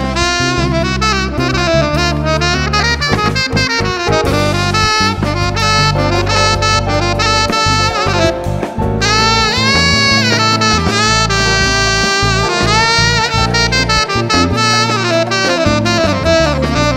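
Tenor saxophone playing a jazz line with pitch bends and runs, over a Latin-jazz band with bass and drums.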